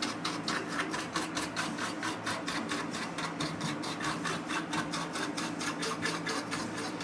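Rapid back-and-forth scrubbing on the amplifier's dirty circuit board, about five or six strokes a second, steady throughout.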